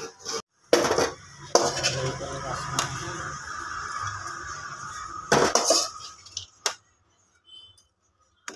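Metal serving spoon clinking and scraping against a steel pot as rice is scooped and stirred, with several sharp clatters.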